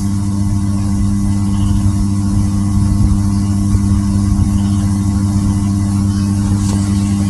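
Steady, loud electrical mains hum: an unchanging low buzz with no other sound standing out.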